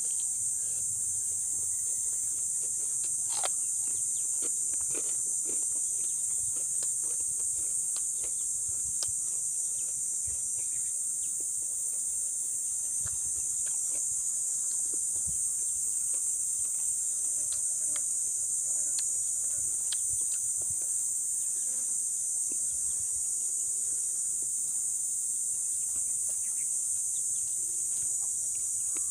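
A steady, high-pitched drone of insects runs throughout, the loudest sound, with scattered close-up clicks and crunches of chewing and tearing crispy deep-fried pork knuckle by hand.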